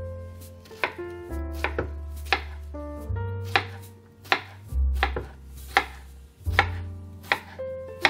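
Kitchen knife chopping a peeled cucumber on a wooden cutting board, a sharp knock of the blade on the board about every three-quarters of a second.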